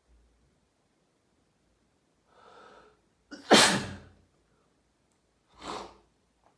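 A person sneezing during a sneezing fit: a soft breathy build-up about two and a half seconds in, then one loud sneeze, and a shorter, quieter burst of breath near the end.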